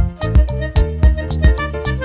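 Background music with a steady beat and instrumental melody.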